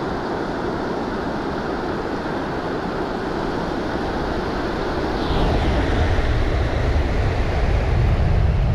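Shallow surf washing in and out, with wind on the microphone. About five seconds in, a heavy low rumble comes in and stays.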